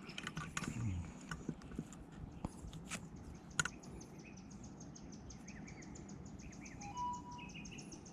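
Faint outdoor ambience of birds chirping, with a few light clicks in the first four seconds. From about four seconds in, a fast, even ticking call runs on, and a brief clear whistled note comes about seven seconds in.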